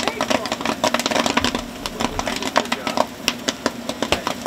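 Commercial popcorn machine popping: dense, irregular crackling pops as the corn overflows the kettle, over a steady low hum.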